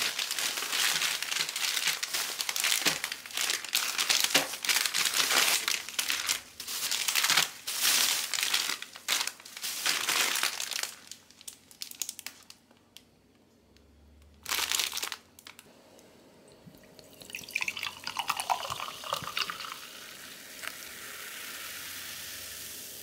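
Plastic ice cream bar wrappers crinkling as the bars are handled, for about the first ten seconds. Later, sparkling water poured into a cup, then fizzing with a steady hiss.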